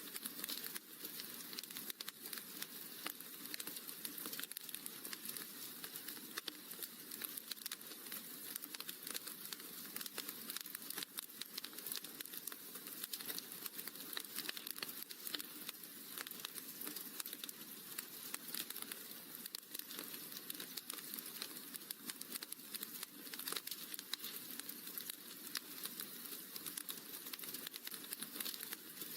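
Wood fire crackling steadily, a dense stream of small rapid pops and snaps.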